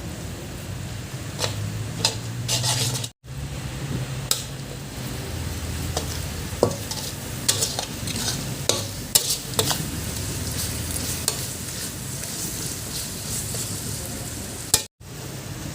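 Food sizzling in a pot while a spoon stirs it, with scattered clinks and scrapes against the pot; the sound cuts out briefly twice.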